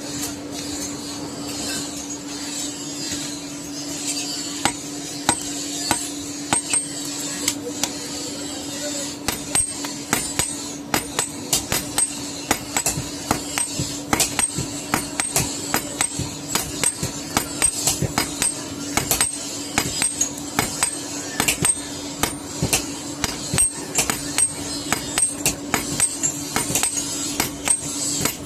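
Hand hammer striking hot iron on an anvil: a few scattered blows at first, then rapid, irregular strikes, several a second, from about a third of the way in, over a steady hum.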